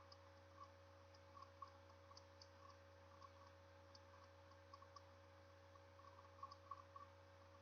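Near silence: room tone with a faint steady hum and scattered, very faint irregular clicks.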